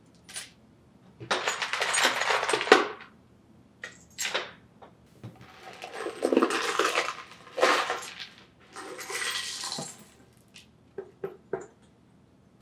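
Machined metal parts tipped from a plastic tub into a vibratory tumbler bowl, clattering against each other and the stainless steel media in the bottom. Two long bursts of clinking, then a few single clinks near the end.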